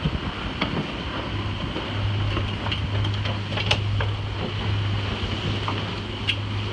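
Ultim racing trimaran under sail: a steady low hum with the rush of wind and water, and scattered clicks and knocks from crew working a winch grinder pedestal on deck.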